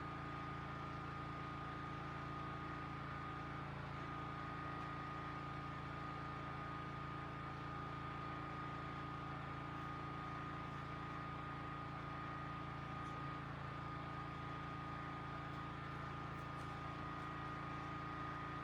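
Generator engine running steadily: a constant hum with a thin steady tone above it.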